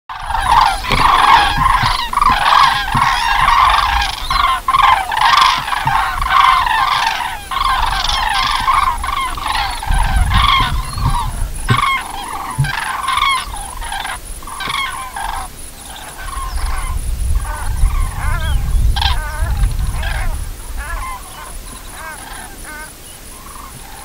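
A flock of cranes calling: many overlapping trumpeting calls. The calls are dense at first and thin out to separate calls in the second half.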